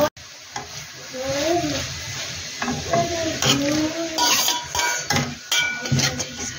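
A spatula stirring and scraping chopped onions and tomatoes frying in a metal pan, with a light sizzle and sharp clinks of the spatula against the pan that come more often in the second half.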